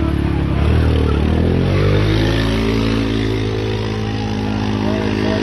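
A vehicle engine running. Its pitch slides down over the first second and a half, then holds a steady low note.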